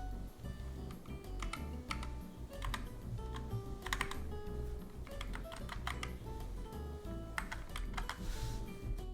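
Keys on a GK61X mechanical keyboard with Zealios V2 67g tactile switches being pressed in short clusters of clicks, a few keystrokes at a time, over background music.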